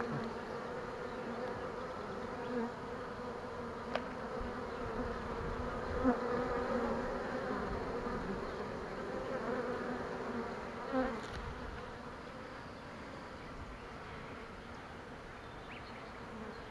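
Swarm of honey bees buzzing in a steady, wavering hum as they crowd the entrance of the hive they have just been put into; the hum fades somewhat after about twelve seconds.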